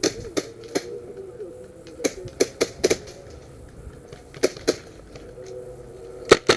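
Airsoft guns firing single shots: about a dozen sharp cracks in uneven groups of one to four, with a cluster near the end.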